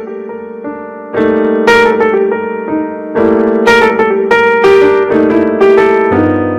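Background music led by piano or electric piano, notes struck in a steady rhythm, growing louder about a second in.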